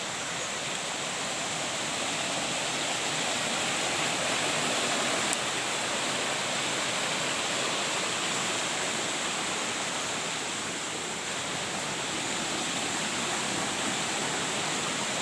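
Shallow rocky stream rushing over stones and a small cascade: a steady, even rush of water.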